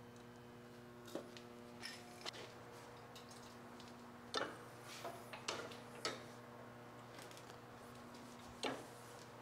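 Quiet shop room tone: a steady electrical hum with a scatter of faint, short clicks and ticks, the sharpest about four and a half seconds in and another near the end.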